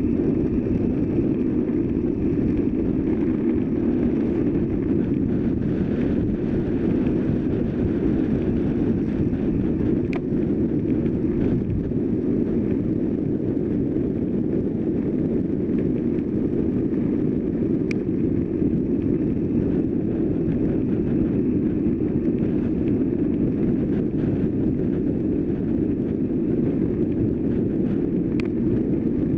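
Steady wind rush on the microphone of a road bicycle riding at speed, with rolling noise from the bike; a few faint ticks.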